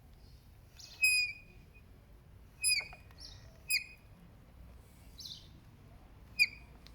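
Kukirin G3 Pro electric scooter's front brake squealing: four short, high-pitched squeals, each sliding slightly down in pitch, with a few fainter hissy rubs between them.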